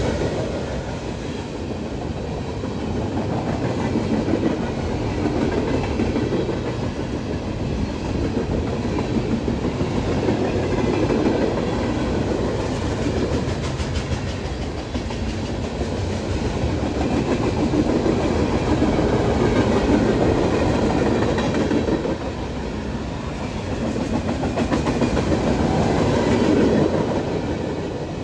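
Long CSX mixed freight train's cars rolling past at close range, a steady run of wheel and car noise that swells and eases every few seconds.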